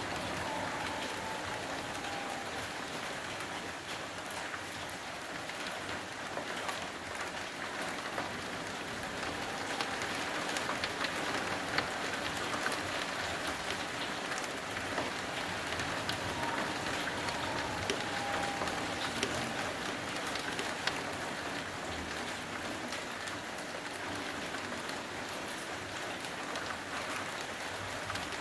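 Steady heavy rain falling, with many individual drops ticking on surfaces close by.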